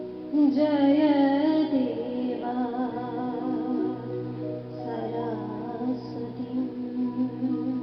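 A woman singing a devotional bhajan in long, wavering phrases over a steady held drone; the loudest phrase begins about half a second in.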